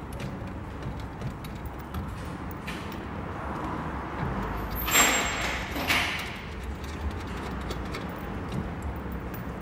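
Workshop noise: a steady low background hum, with two sharp clattering knocks about a second apart midway through.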